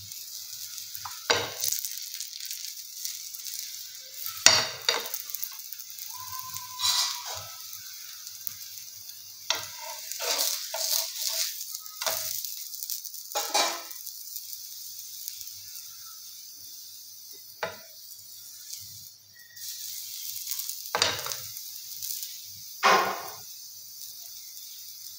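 Spinach paratha sizzling steadily in a non-stick frying pan. A metal spoon scrapes and taps against the pan about ten times as the paratha is spread and pressed.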